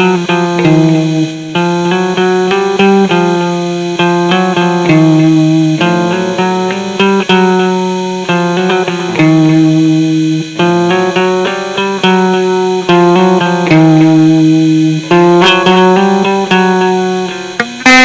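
Instrumental guitar music: a guitar plays a riff of plucked notes that repeats every few seconds.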